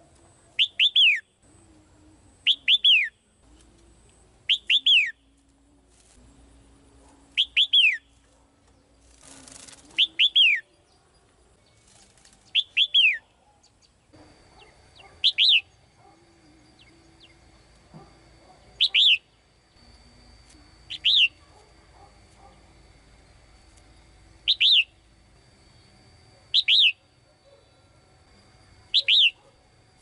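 Caged female red-whiskered bulbul calling: short, sharp falling notes, some given doubled, repeated about every two to three seconds, with a brief flutter of wings about a third of the way in.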